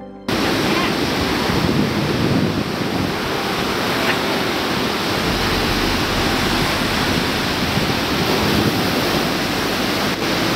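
Ocean surf breaking and washing up a sand beach: a loud, steady rush of waves, with wind buffeting the microphone. It cuts in about a third of a second in, replacing music.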